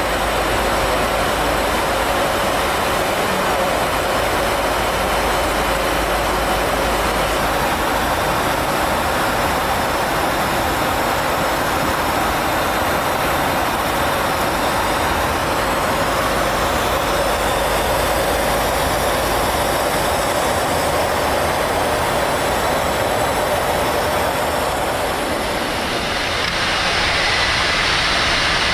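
Steady rush of airflow and engine noise inside a Boeing 747-400's flight deck in flight. It dips briefly and returns slightly brighter near the end.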